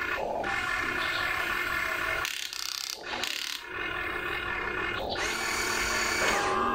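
Electric motors and gearboxes of an RC excavator whining as the arm and bucket move through sand. The whine cuts out twice around the middle, and a new steady motor tone starts about five seconds in as the boom lifts the loaded bucket.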